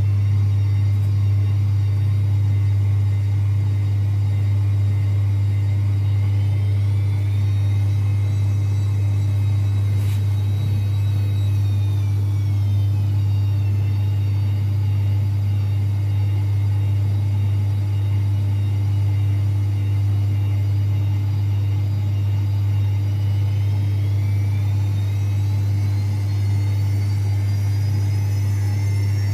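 Zanussi ZWSE680V front-loading washing machine in its final spin, its drum spinning at speed on repaired shock absorbers: a steady deep hum under a motor whine that shifts in pitch, sagging about a third of the way in and rising again near the end.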